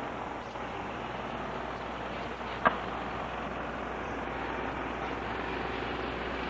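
Mack fire pumper's engine running as the truck drives slowly past, a steady noisy sound, with one short sharp sound about two and a half seconds in.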